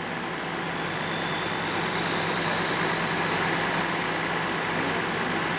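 Heavy diesel engines of a semi tanker truck stuck in mud and the bulldozer pushing it, running steadily under load and growing slightly louder over the first couple of seconds.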